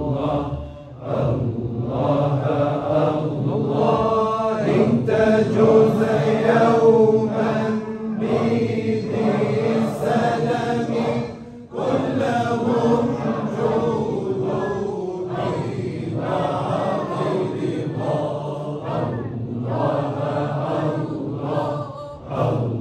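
A large group of men chanting Sufi dhikr together in a hadrah, with repeated sung phrases and brief breaks for breath about a second in and again near the middle.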